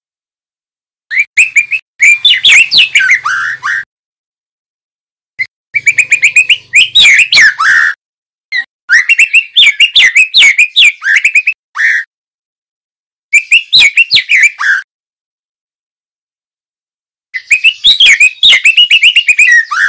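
Young male white-rumped shama singing: five bursts of quick, varied whistled phrases, each with silent pauses of one to two seconds between.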